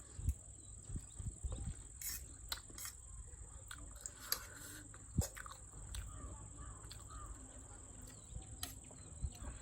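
Eating sounds: scattered clicks and soft thumps of chewing and handling food, over a steady thin high-pitched whine.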